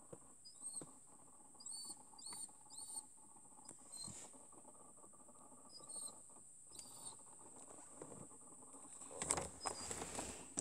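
Air conditioner making an abnormal noise: short, high squeaks that bend up and down, coming in small clusters over a steady hum. A louder rustle follows near the end.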